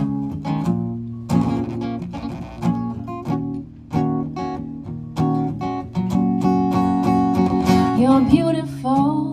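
Acoustic guitar strummed as a song intro, with chords rung out every second or so. A voice starts singing near the end.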